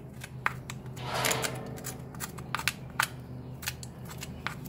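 Hoof pick scraping and clicking against the sole and shoe of a horse's lifted hoof: a run of short, sharp scrapes, with one longer rasping scrape about a second in.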